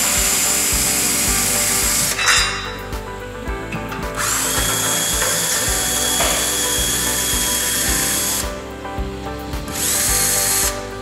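Cordless drill/driver running in three spells with short pauses, the longest in the middle, as it backs out the Phillips screws holding a shower valve's chrome escutcheon plate. Background music with a steady beat plays underneath.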